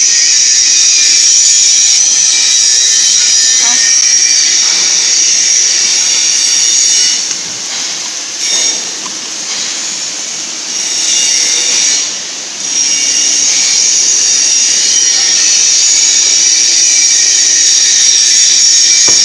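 Welding positioner's turntable drive, an electric motor and gearbox, running with a loud, steady high-pitched whine and hiss. The sound drops away for a few seconds in the middle, then returns.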